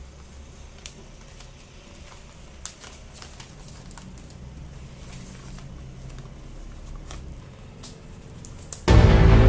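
Gift-wrapping paper being handled and folded around a box, with scattered light clicks and taps over a low hum. Loud music cuts in suddenly near the end.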